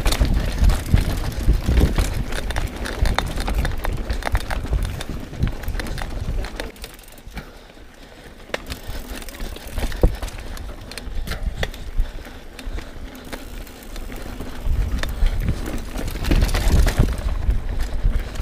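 Mountain bike ridden over a rocky trail: rumble of air buffeting the camera microphone, with tyres and bike frame rattling and knocking over rock. It quietens about six seconds in on a smoother dirt stretch, then loudens again over rocks near the end.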